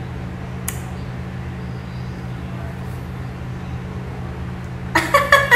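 A steady low hum with a hiss of background noise, and a single click a little under a second in. Near the end a woman's voice breaks in briefly.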